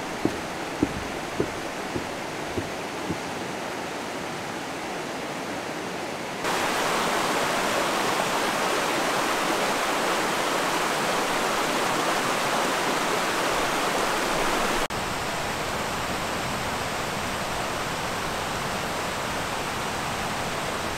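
Creek waterfall rushing as a steady hiss of falling water. It jumps abruptly louder about six seconds in and drops back a little about fifteen seconds in. A few sharp taps sound in the first few seconds.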